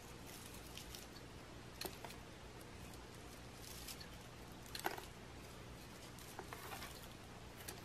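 Faint rustling and crinkling of dry raffia strips being handled, with a few soft clicks, the sharpest about five seconds in, over a faint steady hum.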